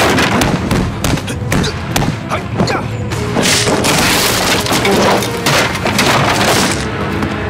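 Movie fight sound effects over action music: a quick run of hits and thuds, then a long crashing of wooden crates being smashed and knocked over, from about three and a half seconds in to near the end.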